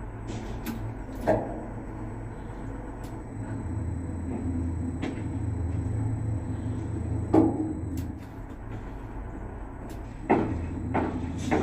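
A steady low mechanical rumble, with sharp clicks or knocks about five times.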